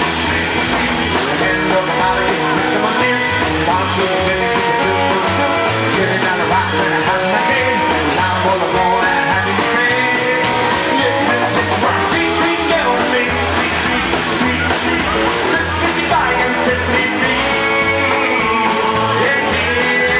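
Live rock-and-roll band playing: red semi-hollow electric guitar over a strummed acoustic guitar and an upright double bass keeping a steady low beat.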